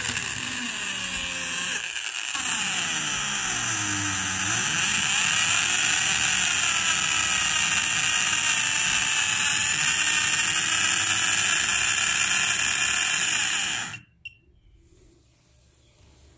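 A toy's small electric motor running fast off a bench power supply at raised voltage, giving a loud, high, wavering whine and mechanical noise. It cuts off suddenly about fourteen seconds in, leaving near silence.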